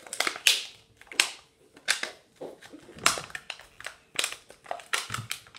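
Clear plastic wrapping crinkling and crackling in a series of short, sharp bursts as it is pulled off a tub of slime.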